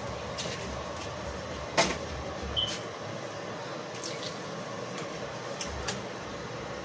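Kitchen handling clatter: a few light knocks and clicks as things are moved at the counter, the loudest a sharp knock about two seconds in, then a short ringing clink, over a steady background noise.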